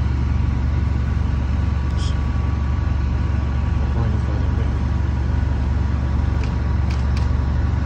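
Heavy truck engine running steadily, a deep continuous rumble with a faint steady whine above it and a few light ticks in the second half.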